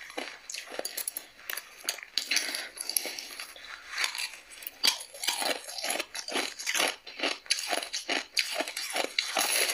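Ice being bitten and chewed: a fast run of crisp crunches, several a second, as mouthfuls of frosty crushed ice are broken between the teeth.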